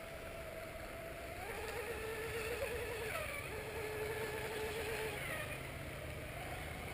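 GRX rigger RC boat's electric motor whining as it laps the pond, the pitch dipping and recovering a few times as it turns.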